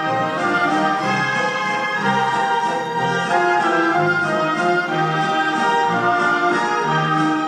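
Orchestral music with sustained chords and a low note recurring about once a second.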